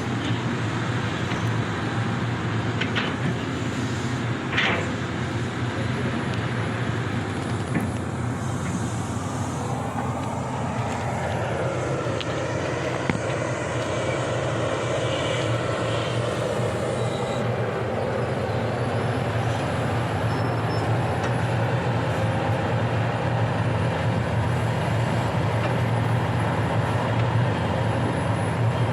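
Sany hydraulic excavator's diesel engine running steadily while working, its note dipping and rising again around the middle as the load changes. Two brief high squeaks come about three and five seconds in.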